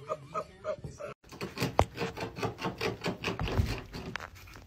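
A run of quick scraping or rasping strokes, about four a second.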